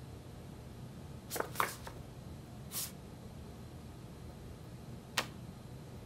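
Photo prints rustling and sliding against one another as they are leafed through by hand: a few short swishes a little over a second in, another near three seconds, then a single sharp paper click a little past five seconds, over a low steady hum.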